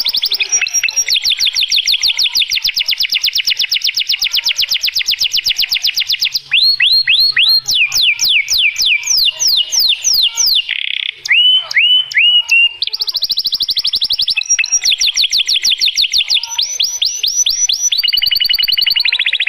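Domestic canary singing a long, loud song: fast trills of repeated notes, broken up in the middle by runs of quick downward-sweeping whistles, then trilling again.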